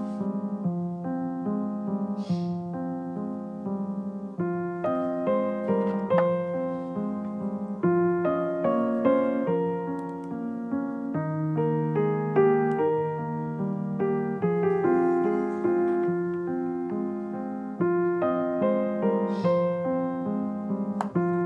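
Background piano music: a slow melody of single notes over chords.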